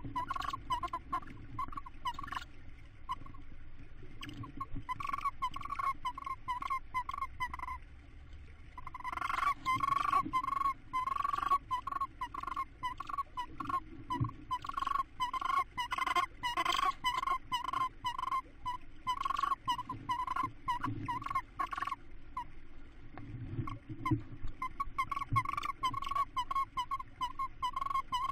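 Tawny owls calling in a nest box: a fast run of short, mid-pitched notes, several a second, which breaks off briefly a few times, during a feed at the nest.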